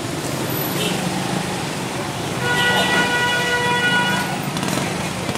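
Street traffic with scooter engines running close by; about two and a half seconds in, a vehicle horn sounds steadily for about two seconds.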